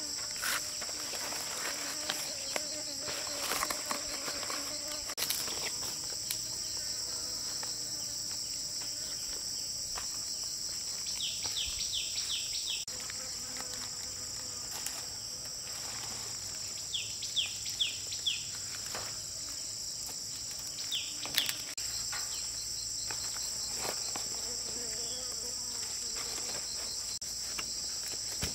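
Steady high-pitched chorus of insects, unbroken throughout, with scattered faint clicks and rustles from leaves being handled.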